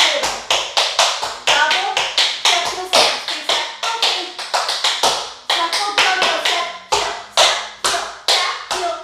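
Tap shoes striking a hard floor in a tap dance combination: a steady, rhythmic run of sharp metal taps, about three to four a second.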